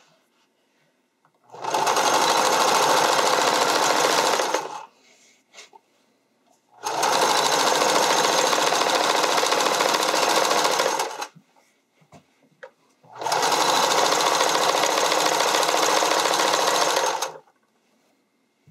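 Domestic sewing machine stitching elastic onto a spandex edge in three runs of three to four seconds each, stopping briefly between runs.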